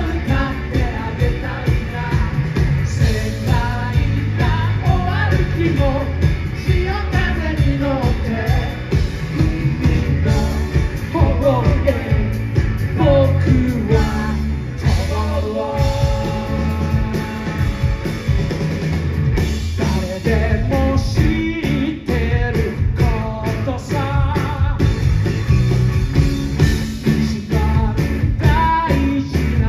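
Live rock band playing a song: a male voice singing over electric guitar, bass guitar and drums with a steady beat. The singing pauses for a few seconds in the middle while the band holds sustained chords, then comes back.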